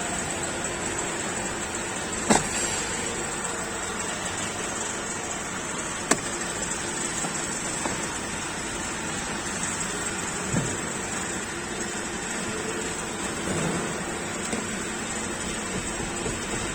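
Steady car cabin noise inside a Honda City, with a sharp click about two seconds in and a fainter one about six seconds in. The dashboard rattle being listened for is not heard.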